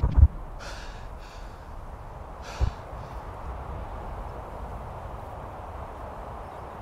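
A man's heavy, gasping breaths, a few of them in the first three seconds. Low thumps at the very start are the loudest sound, and another comes at about two and a half seconds, over a steady rushing background.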